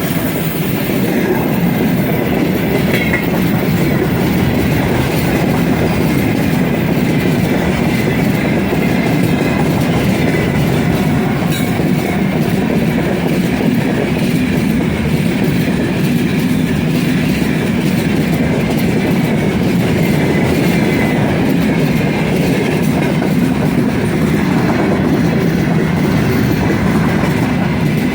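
A long loaded freight train behind a 3ES5K 'Ermak' electric locomotive rolling past close by: a steady loud rumble of wheels on rail with the clickety-clack of wagons, and a faint wheel squeal at times.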